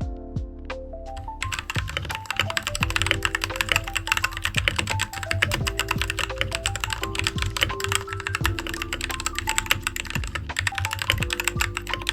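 Fast, continuous typing on a Kemove T68SE membrane keyboard, a dense patter of key presses starting about a second and a half in, over background music.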